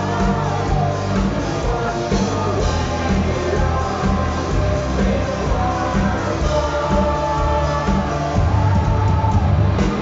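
Live rock band playing at full volume: electric guitar, bass and drums with a male lead voice singing over them.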